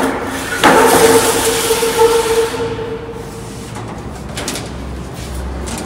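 Furniture being unloaded and handled: a knock about half a second in, then a ringing tone that fades over about three seconds, a few light clicks, and a low rumble near the end.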